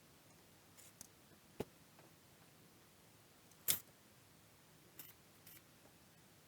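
Scattered small clicks and taps from tools and parts being handled, about five in all, the loudest about three and a half seconds in.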